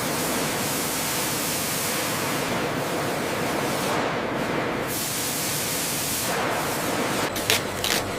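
A steady, even hiss, like air or spray noise, with a few sharp clicks near the end.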